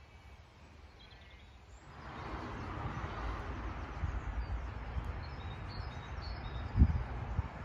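Wind rushing over the microphone: it picks up about two seconds in and holds, with an uneven low rumble of gusts and a sharp knock near the end. A few faint bird chirps sound through it.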